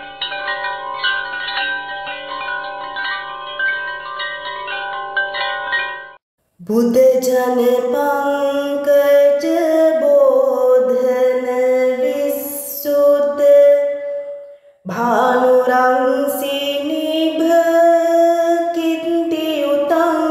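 Chimes ringing in a steady run of bell-like notes for about six seconds. Then, after a short break, a woman's voice sings two long, drawn-out melodic phrases with a brief pause between them, opening a chanted Buddhist stotra.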